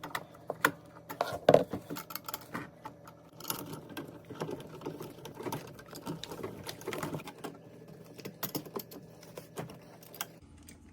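Irregular light clicks, taps and rustling as electrical wires are fed through a dishwasher's cable strain relief clamp, with a sharper knock about a second and a half in.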